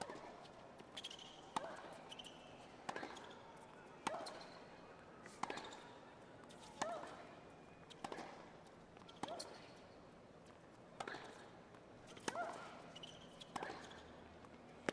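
Tennis ball struck back and forth in a long baseline rally on a hard court: about a dozen racket hits, evenly spaced a little over a second apart, most of them with a short grunt from the player.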